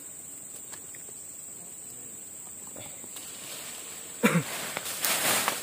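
Quiet streamside background with a thin, steady, high insect drone. About four seconds in, a man's short throat-clearing grunt falling in pitch, then rustling and handling noise as the camera is moved about.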